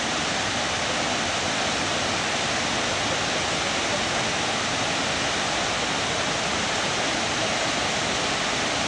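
Steady, unbroken rush of fast-flowing water.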